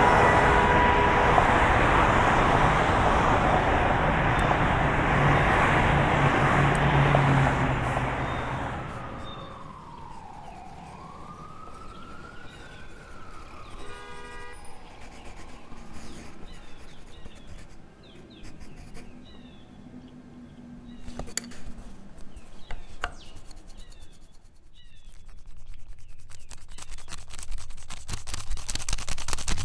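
A soundtrack of sound effects: a loud rushing noise that fades out about nine seconds in, then a single siren-like tone that slides down and back up. Faint chirps and scattered clicks follow, and a rough noise swells up near the end.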